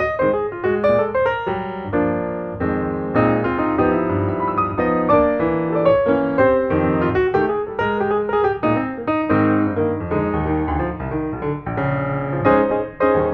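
Background piano music, a quick steady flow of notes.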